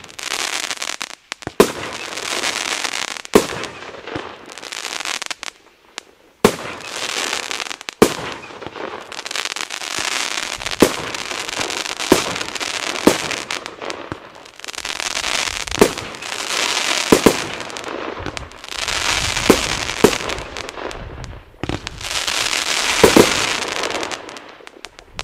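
Pyrotrade Xenon 16-shot firework battery firing: sharp bangs about every one to two seconds, each followed by a spell of crackling as the shells burst in the sky.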